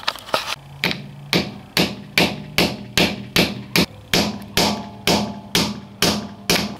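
Hammer striking metal inserts to seat them into a solid aluminum steering shaft bushing, in a steady run of sharp blows, about two and a half a second.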